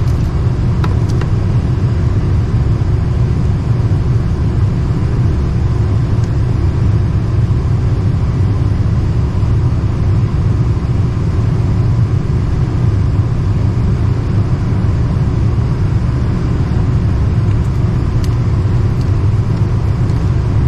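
Lennox package unit's indoor blower running steadily after a call for heat, a loud even low rumble, with a few faint clicks.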